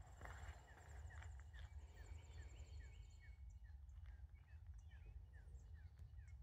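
Faint birdsong: a long run of short falling chirps, about two or three a second, with a thin, rapid high trill in the first two seconds, over a low rumble.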